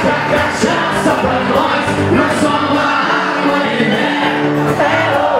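Sertanejo song: sung vocals over a full band, playing steadily.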